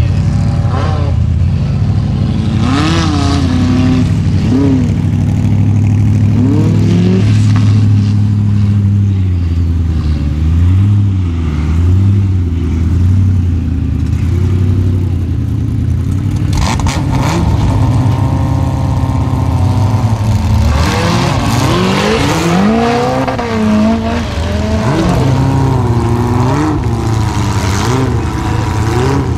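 Off-road racing buggy's engine revving hard as it climbs a steep dirt hill, its pitch rising and falling again and again as the throttle is worked. It grows louder and busier past the middle.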